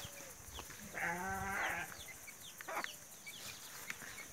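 A farm animal calling once, a wavering pitched call of just under a second about a second in, with small birds chirping in short, high, falling notes around it.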